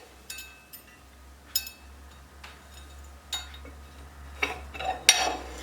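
Sharp metal clinks and taps of tools against the steel knife and drum of a wood chipper as the knife is worked free, each ringing briefly. They come about a second apart, then turn into a louder clatter of metal near the end.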